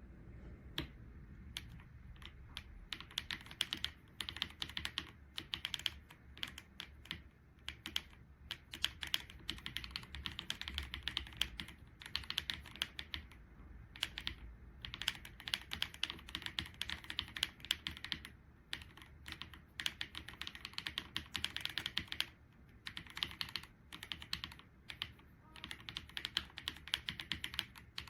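Typing on a Keychron C3 Pro mechanical keyboard with Keychron Super red linear switches: quick runs of key clacks separated by short pauses.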